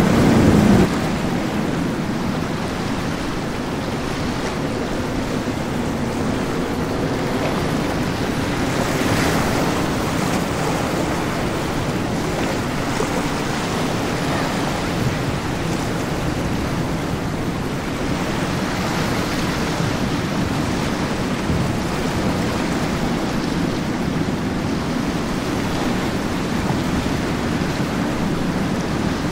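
Steady wash of wind and surf, with wind buffeting the microphone. A louder sound with a low hum breaks off within the first second.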